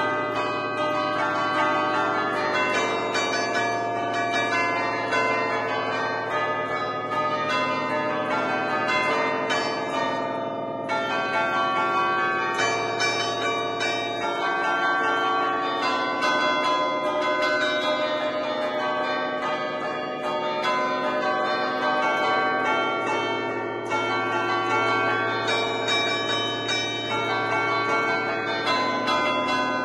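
A ten-bell chime tuned in A, cast by Barigozzi in 1950, is being played by hand from a baton keyboard. The tunes are lively and traditional, in the festive allegrezza style, with quick successive strikes whose ringing overlaps continuously. It is heard close up in the bell chamber.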